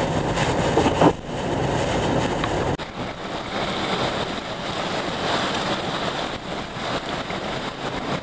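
Hurricane Delta's wind and driving rain. It is first heard from inside a moving vehicle with road rumble and a sharp thump about a second in. From about three seconds in it becomes a steady hiss of wind-driven rain with less rumble.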